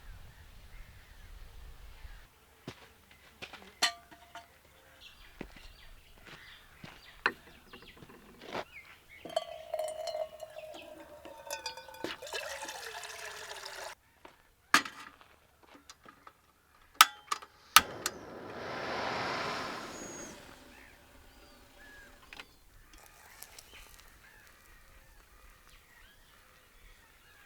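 Scattered sharp clicks and knocks of things being handled, with liquid pouring for a few seconds around the middle and a brief rushing swell a little later.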